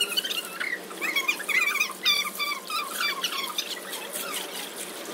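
Swimming-pool water gurgling and lapping into the overflow gutter grate right beside the microphone, a quick run of short squeaky gurgles stirred up by a swimmer's splashing.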